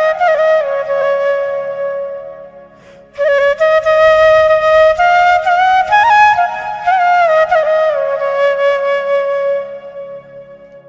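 Flute music: a slow melody of long held notes with small pitch bends, over a faint low drone. It breaks off briefly about three seconds in, then resumes and fades toward the end.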